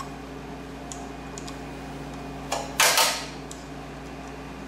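Small metal tools and parts of a mini lathe's change-gear assembly clicking and clacking as they are handled and unfastened, with a few light clicks and one loud clack about three seconds in, over a steady low hum.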